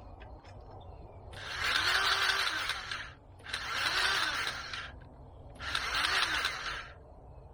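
Grease gun forcing grease into a zerk fitting on a Kubota L3301HST loader pivot until it flows out of the bushing: three hiss-like bursts of about a second each, a couple of seconds apart.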